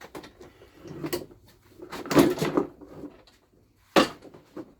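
Toro Recycler push mower being tipped back over onto its wheels: a run of knocks and rattles, loudest in a clatter about two seconds in, then a single sharp knock at about four seconds.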